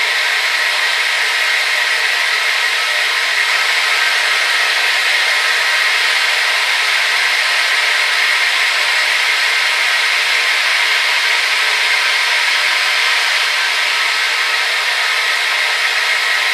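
Hair dryer running steadily: an even, unbroken rush of air and motor hum with a high whine near the middle of its pitch range.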